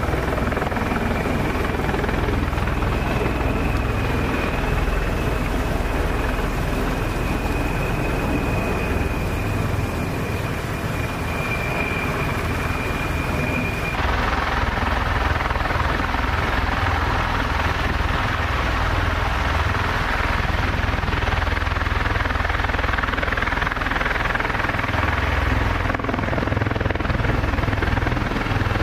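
V-22 Osprey tiltrotor aircraft running low over a field: a steady rotor rumble with a high turbine whine that cuts off abruptly about halfway through, after which the noise turns hissier.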